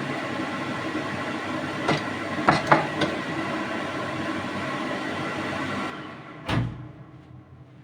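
A machine running with a steady whirr, with a few sharp clicks in the middle. It cuts off about six seconds in and is followed by a single thump.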